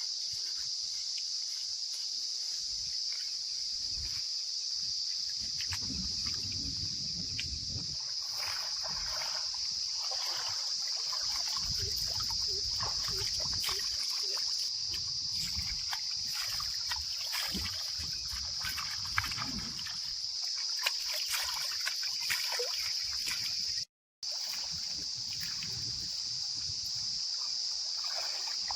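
A steady, high-pitched insect drone, like cicadas, runs throughout. Under it are intermittent low rumbling and scattered light knocks, and the sound cuts out briefly near the end.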